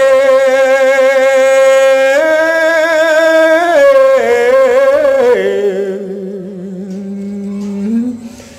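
Khmer smot, Buddhist verse chanted by a single voice in long held notes with a slow waver; the pitch glides lower a little before halfway and the voice fades away near the end.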